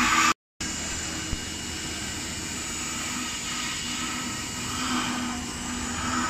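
CNC router spindle running as its bit carves a foam block on a rotary axis: a steady whirring hiss with a thin high whine. The sound drops out for a split second about half a second in.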